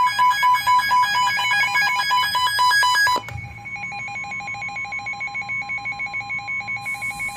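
Weather radio alert for a tornado warning: rapid electronic beeping for about three seconds, then a quieter beeping that alternates between a low and a high tone over a steady alert tone, which stops at the end.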